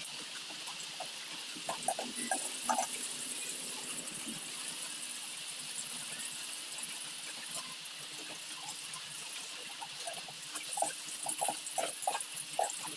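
Ginger slices sizzling steadily in hot oil in an aluminium stockpot. An animal's short high squeals come in a cluster about two seconds in and again several times near the end.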